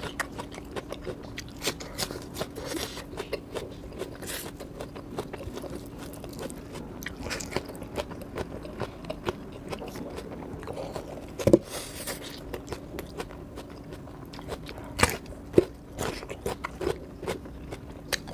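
Close-up chewing and crunching of rice, fried chicken and raw onion eaten by hand, with many small wet mouth clicks. There are a few sharper, louder crunches, once past the middle and twice close together near the end, over a steady low hum.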